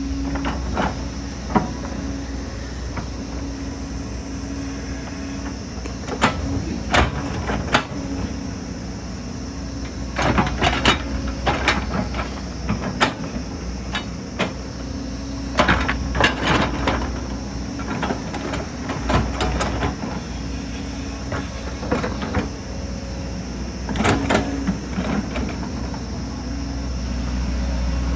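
Hydraulic excavator's diesel engine running steadily, with clusters of clanks and knocks from the machine working earth and rock.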